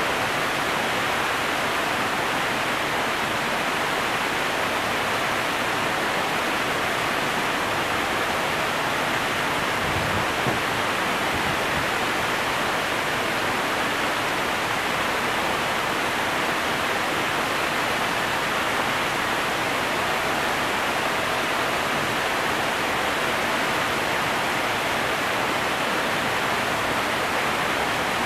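Steady rush of water pouring through the canal lock gates into the chamber, with one brief low thump about ten seconds in.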